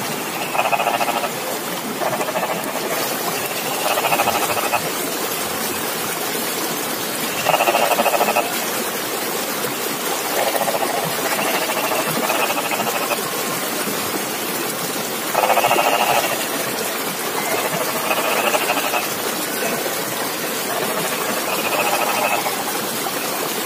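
Frogs calling from flooded rice paddies, short pulsed croaks about a second long repeating every two to three seconds over a steady hiss.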